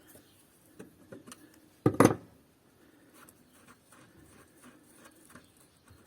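Stud extractor being wound to back a snapped bolt out of a brushcutter's stub shaft: a few light clicks, then one short loud knock about two seconds in, followed by faint ticks.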